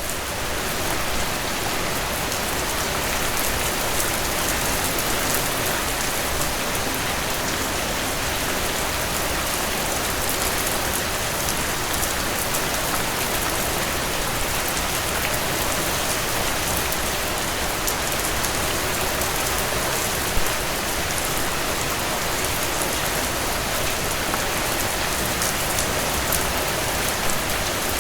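Steady rain falling, a dense even hiss with fine drop patter. One slightly louder drop or tap about twenty seconds in.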